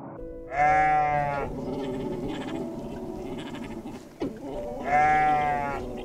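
A goat bleating twice, each bleat about a second long and nasal, over soft background music.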